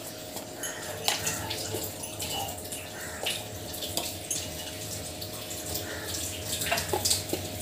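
Sweetened milk bubbling as it simmers in a steel saucepan, with many small irregular pops and the occasional scrape and tap of a spatula against the pan.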